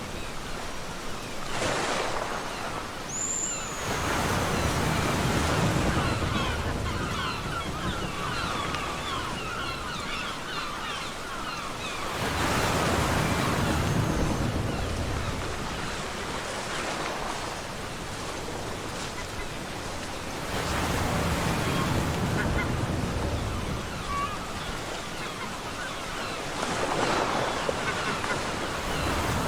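Ocean waves breaking on a beach: a steady hiss of surf that swells into a louder wash about every five to eight seconds, five times in all.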